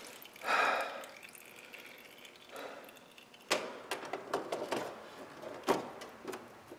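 Oil dripping around a lawn tractor engine's oil filter, with scattered light clicks and taps as hands work at the filter. A short soft rush about half a second in is the loudest sound, with a fainter one near the middle.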